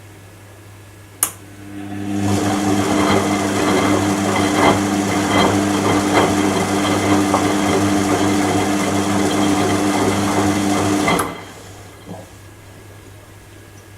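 Washing machine motor: a click, then the drum motor runs steadily for about nine seconds and stops abruptly, one burst of the wash cycle's start-stop turning of the drum.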